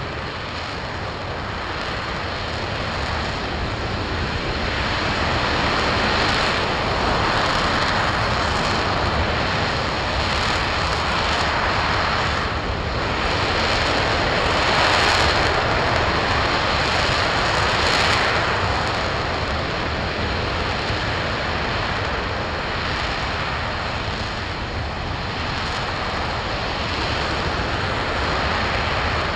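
RS-25 liquid-hydrogen/liquid-oxygen rocket engine firing on a test stand, shortly after ignition. A loud, steady roar of exhaust noise swells and eases every few seconds.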